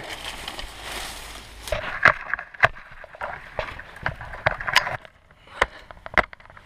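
Rustling of dry twigs and leaves, then a string of irregular sharp snaps and cracks as thin branches are broken and cut for a cooking spit.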